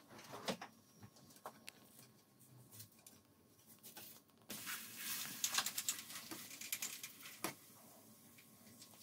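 Pancake batter sizzling faintly in a nonstick frying pan, with a few short spatula scrapes and taps against the pan. Midway the pancake is flipped, and the sizzle turns louder and crackly for a few seconds before easing off.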